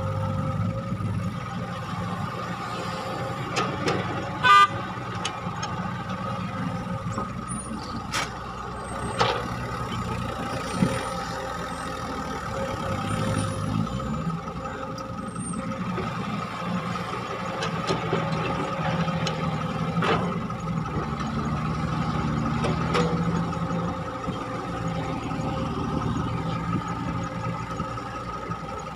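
Diesel engine of a Cat hydraulic excavator running steadily under load while digging soil, with a steady whine over the engine. A few sharp knocks and clanks sound from the bucket and soil; the loudest comes about four and a half seconds in.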